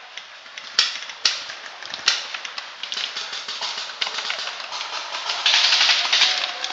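Paintball markers firing: sharp pops about a second in, then again soon after and near two seconds, over a steady scatter of faint ticks from shots further off. Near the end a loud rushing noise lasts about a second.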